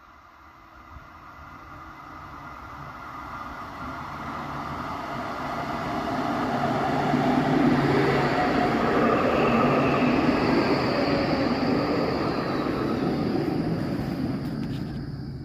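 Electric articulated tram approaching and passing close by, its wheels running on the rails with a high whine above, growing steadily louder over about seven seconds and staying loud as the cars go past.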